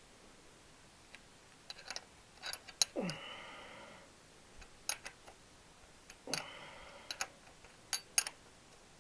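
Sharp metallic clicks and ticks of hand tools on the engine, with two short creaks, each falling in pitch, about three seconds in and again past the middle. They come as a puller is worked to draw the alternator rotor off the crankshaft.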